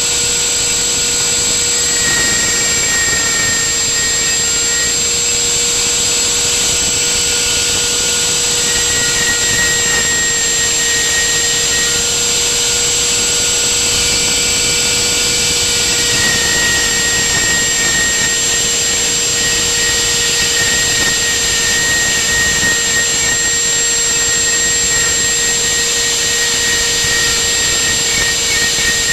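Homemade CNC router's spindle running steadily while its end mill carves letters into a softwood board, a loud high whine over fainter tones that shift pitch every few seconds.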